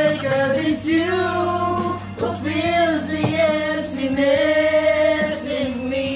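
A small group of friends singing a love song together, led by women's voices, sung loudly and continuously.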